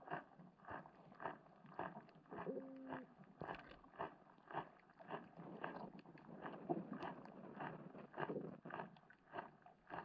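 Faint, muffled knocks, roughly two a second, heard underwater through a camera's waterproof housing. A brief low tone sounds about two and a half seconds in.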